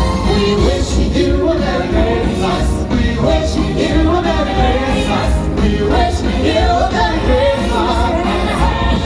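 Christmas medley show music with singing: a melody wavering over a full band, steady throughout.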